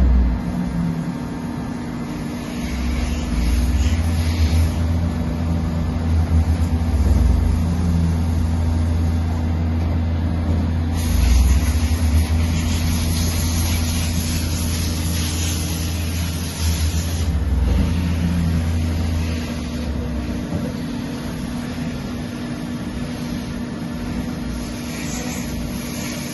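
EMCO Maxxturn 65Y CNC lathe running: a steady machine hum whose low drone changes level several times, with a hiss that strengthens for several seconds about halfway through.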